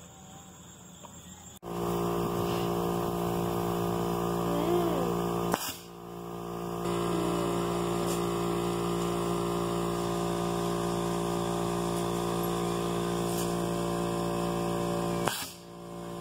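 A steady machine hum made of several even tones, broken twice, about ten seconds apart, by a sharp pop, as of a compressed-air launcher firing.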